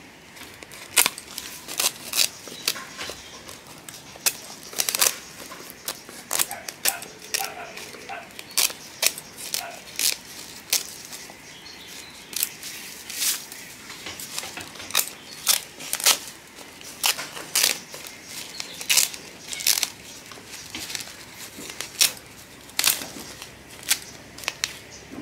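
Scissors snipping through a woven plastic sack, short sharp cuts coming irregularly, about one or two a second, with the stiff sack crinkling as it is handled.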